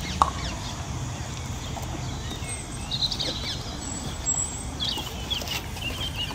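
Birds chirping and singing over a steady outdoor background, with one sharp knock just after the start: a croquet mallet striking a ball.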